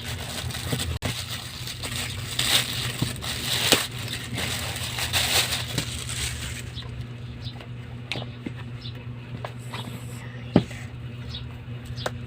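Plastic packaging rustling and crinkling as a parcel is unwrapped, dying down to scattered light clicks and taps, with one sharper knock near the end.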